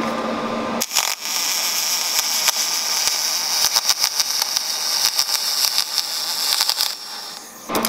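MIG welding arc from a spool gun running aluminum wire under pure argon: it strikes about a second in and runs as a steady hiss with a fast crackle, then cuts off about a second before the end.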